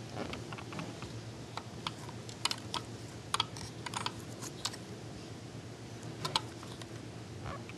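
Irregular light clicks and taps as fingers handle and shift the small pieces inside a miniature model, in quick clusters through the middle, over a faint steady low hum.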